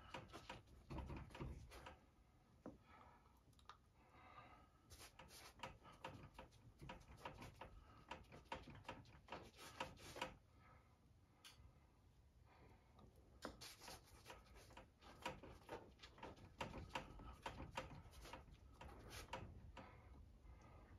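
Faint, irregular taps and rubbing strokes of gloved fingers dabbing and smearing acrylic paint on a stretched canvas.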